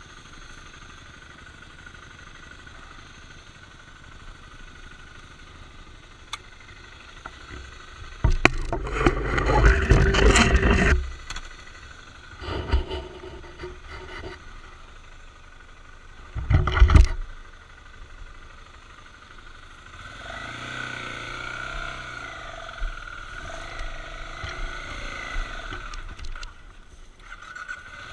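BMW F650GS motorcycle engine revving hard about 8 seconds in for a few seconds and again briefly about 17 seconds in, then running steadily as the bike rides along a rough dirt trail.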